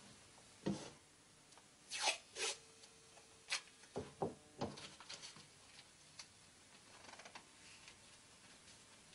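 Scattered knocks and rubbing sounds: about seven sharp knocks in the first five seconds, then only faint ones.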